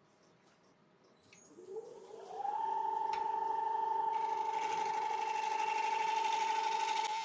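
Wood lathe switched on about a second in, its motor whine rising in pitch as it spins up the 17-inch yew bowl blank and then holding steady. From about four seconds a gouge cutting the outside of the spinning dry yew adds a steady hissing scrape, which drops away at the end as the tool comes off while the lathe keeps running.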